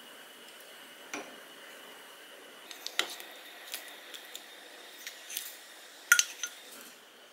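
Soft tofu being pushed with a wooden spoon from a metal bowl into an earthenware pot of simmering stew: scattered clinks and clicks of the bowl and spoon against the pot, loudest about six seconds in, over a steady low hiss.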